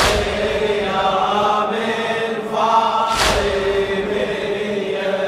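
Men chanting a Shia latmiyya lament, with drawn-out sung lines, and the crowd's chest-beating landing in unison twice, about three seconds apart, as deep slaps.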